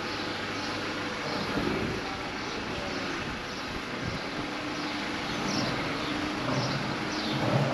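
A van's engine running at low revs as it creeps slowly up a narrow lane close ahead, a steady low drone.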